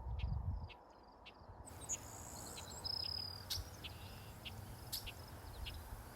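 Crickets chirping in short, regular high pulses, with a few sharper bird chirps and a brief whistle mixed in over a low rumble.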